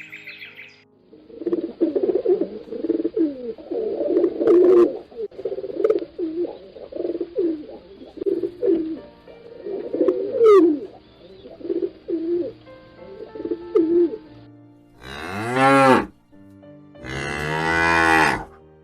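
A long run of many short, low animal calls overlapping, then two long, loud cow moos near the end, each rising and falling in pitch.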